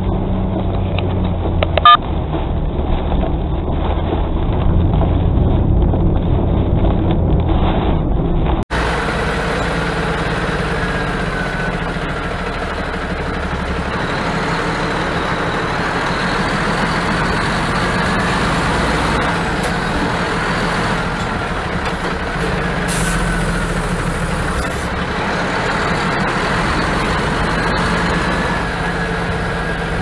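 Vehicle running noise picked up by a dashcam, with a sharp click about two seconds in. After a cut about nine seconds in comes a tractor unit's diesel engine and running noise, heard from behind the cab as it pulls an empty container chassis, with a faint wavering whine over it.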